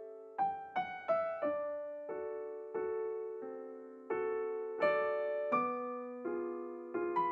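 Background piano music: a slow melody of single notes and chords, each struck about every half second and left to ring and fade.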